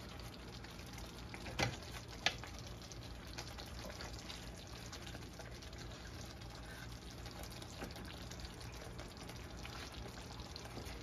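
Meatballs in tomato sauce simmering in a skillet with a soft, steady bubbling, and a wooden spoon stirring them, knocking against the pan twice about one and a half and two seconds in.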